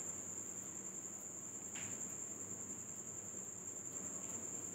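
A steady high-pitched tone runs throughout, over faint soft scraping of a steel spoon spreading mashed-potato filling across rolled-out dough.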